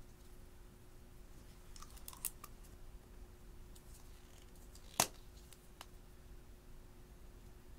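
Small plastic glitter tubes being handled, opened and poured: a few light clicks about two seconds in and one sharp plastic click about five seconds in.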